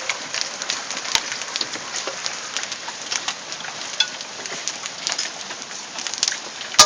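Hailstones pelting down, a dense irregular patter of sharp ticks and clicks, with one much louder crack near the end as a big stone hits.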